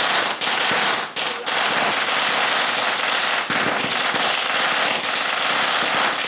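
A string of firecrackers going off in one dense, continuous crackle. It starts abruptly and has brief breaks about a second in.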